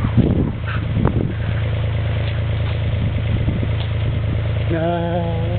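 Mini excavator's diesel engine running steadily at a low idle. Near the end a person calls out in one long held note over it.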